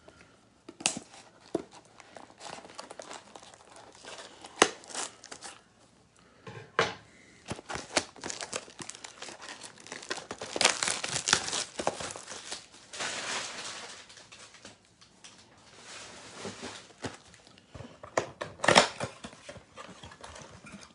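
A 2014 Rookies and Stars football card box being unwrapped and torn open by hand: crinkling wrapping and tearing cardboard in irregular bursts, busiest about halfway through, with a sharp tear near the end.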